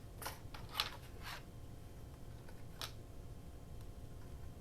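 Paper scraps and cut-outs being handled and shuffled: a few brief rustles and taps in the first three seconds, then only a faint steady hum.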